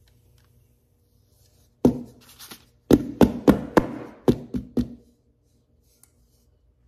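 Round metal cake pan full of batter knocked down on the kitchen counter, once and then about seven more times in quick succession, to settle the batter and knock out air bubbles.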